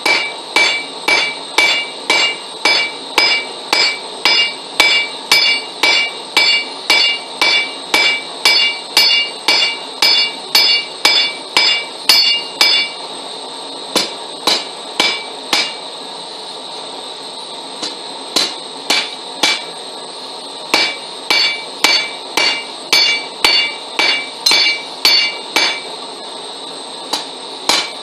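A hand hammer strikes hot steel on an anvil in a steady run of blows, about two to three a second, flattening the glowing end of the bar. The anvil rings clearly after each blow through the first half. Later the blows come in shorter runs with brief pauses.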